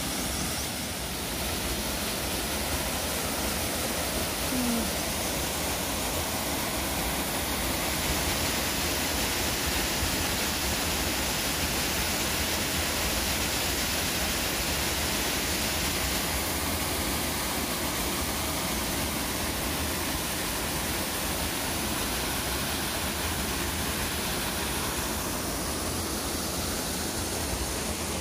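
Steady rush of the Ouseburn stream flowing over rocks, with a brighter hiss for several seconds in the middle.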